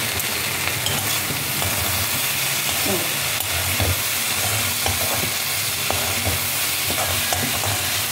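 Chopped okra stir-frying in oil in a kadai, nearly cooked: a steady sizzle, with a spatula scraping and knocking against the pan as it turns the pieces.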